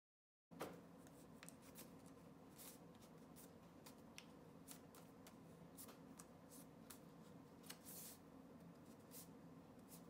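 Thick paper rustling and crackling in the hands, in irregular short clicks, as it is folded and pressed against the bottom edge of a shoe last to crease a pattern. A faint steady hum lies underneath.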